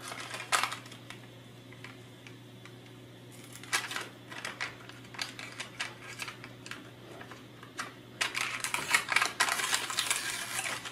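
Protective paper backing being peeled off a plastic chassis plate: scattered crinkles and clicks, then steady crackling and tearing of the paper from about eight seconds in.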